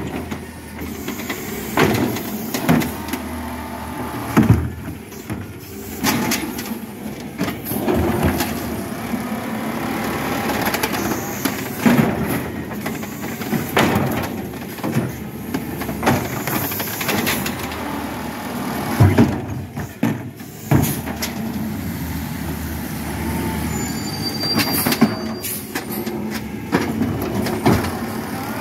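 Natural-gas Peterbilt 320 automated side-loader garbage truck running while its hydraulic arm lifts and tips wheelie bins into the hopper. The engine and hydraulics run steadily, broken every few seconds by sharp bangs and knocks as the carts are shaken out and set back down.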